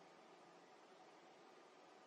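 Near silence: only a faint steady hiss.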